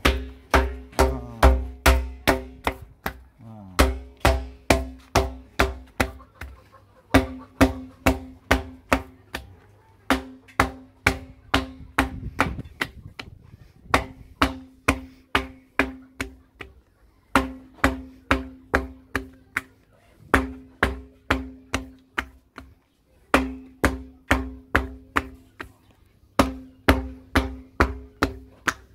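A ribbed wooden paddle beating the outer wall of a clay tandoor while a hand braces the wall from inside. The sharp knocks come about three a second in runs of a few seconds, with short pauses between runs, and each knock leaves a brief low ring.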